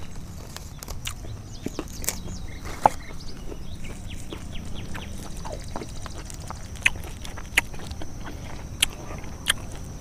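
Close-up chewing of raw young jengkol leaf shoots, with irregular crisp clicks and crunches of the mouth, over a steady high insect drone and short chirps in the background.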